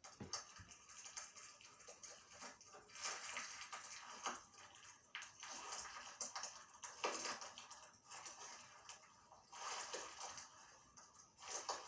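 Slime being squished and worked by hand: irregular crackling and small pops that come and go in swells.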